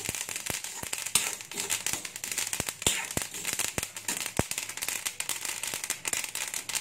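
Flaxseeds popping and crackling as they dry-roast in a hot kadhai without oil, several sharp irregular pops a second over a faint hiss, while a steel ladle stirs them. The popping shows the seeds are nearly roasted, puffing up and splitting.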